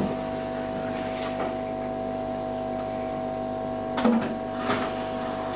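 Steady electric hum of an aquarium's submersible filter pump, with a few brief knocks about four seconds in.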